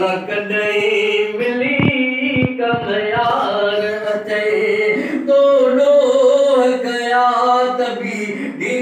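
A man singing a naat unaccompanied, drawing out long, wavering melismatic notes. Two brief knocks come about two seconds in.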